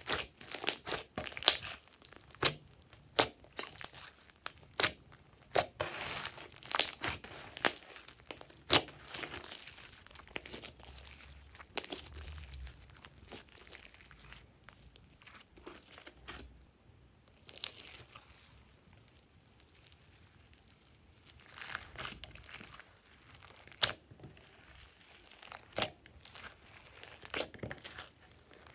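Hands squishing, folding and stretching glossy slime studded with foam beads, making a run of sharp sticky pops and clicks. The sounds thin out for several seconds around the middle, then pick up again.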